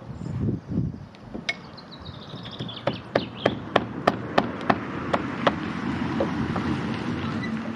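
A run of sharp knocks, about three a second for several seconds, after a few dull thuds; a steady noise carries on once the knocking stops.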